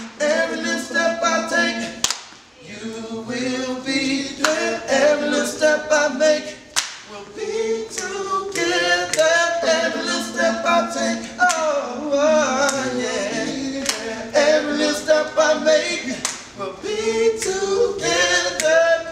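A men's vocal trio singing a cappella in harmony, with regular hand claps keeping the beat.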